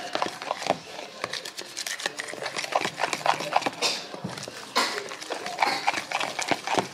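Metal spoon stirring thick banana-and-flour fritter batter in a plastic container: a rapid, uneven run of clicks and knocks against the sides.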